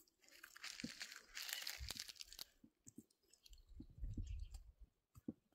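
Faint rubbing and rustling of hands massaging a neck and shoulders, then a few low bumps about four seconds in.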